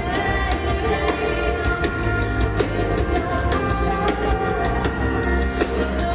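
Live band music with drums and cymbals over a sustained bass and melody.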